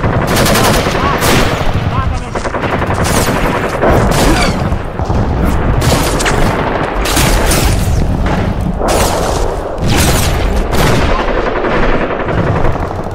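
Close-range small-arms fire: rifle shots one after another, single shots mixed with rapid bursts, with no pause between them.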